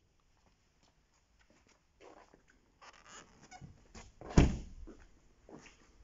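Volkswagen Golf door being shut: one solid, heavy thump about four seconds in, after scattered rustling and handling noises as someone gets out of the car.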